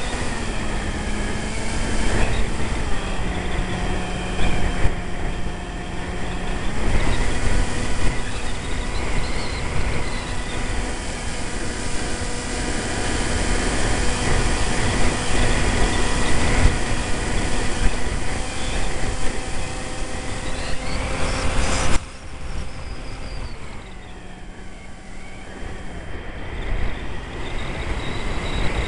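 Onboard recording from a Multiplex EasyStar RC plane: the electric pusher motor and propeller whine at a steady pitch that steps up and down with the throttle, under a loud rush of wind over the microphone. About three-quarters of the way through, the rushing noise drops away suddenly and the motor tone carries on lower.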